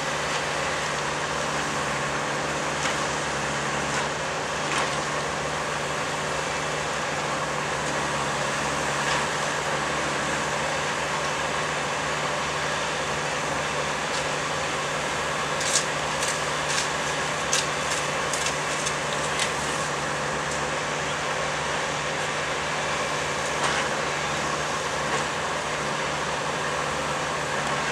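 Steady engine drone of tie-replacement track machinery working, with a low hum throughout. A little past halfway comes a quick run of sharp metallic clanks and clicks lasting a few seconds, with a few single clicks elsewhere.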